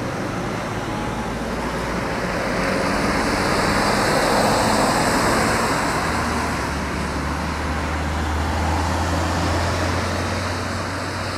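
An ambulance driving past, its engine and tyre noise swelling to a peak about four to five seconds in and then easing as it drives off. A steady low engine hum sets in about six seconds in.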